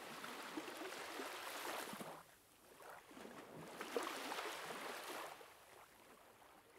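Faint water sounds, gurgling and washing in two swells, then dying away near the end.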